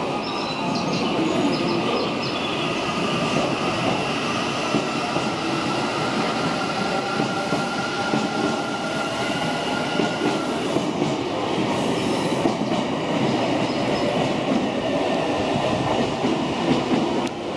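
Odakyu electric train running past at the station platform: a steady rolling rumble with thin, drifting squeal tones from the wheels and occasional clicks over the rail joints.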